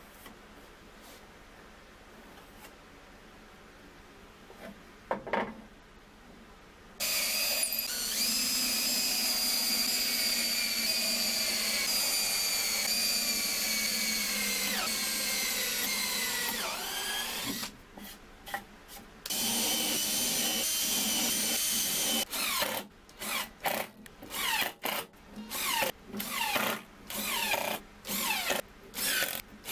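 Cordless drill boring into plywood: after two knocks in a quiet start, its motor runs in a steady whine for about ten seconds, sagging slightly in pitch under load. It then runs again for a few seconds and finishes in many short trigger bursts as screws are driven into the plywood.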